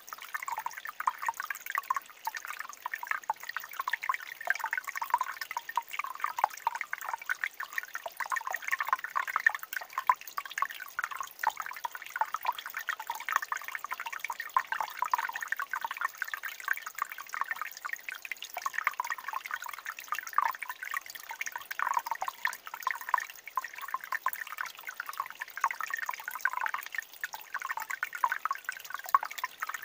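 A thin stream of water trickling over rock into a pool: a steady, light burbling made up of many small drips and splashes, with no deep rush.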